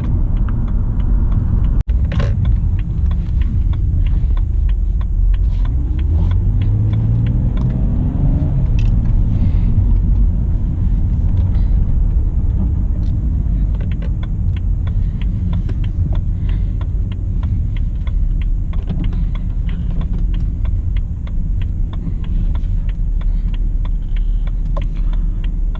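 A motor vehicle's steady low rumble, with a brief rise and fall in pitch about seven seconds in and scattered light clicks.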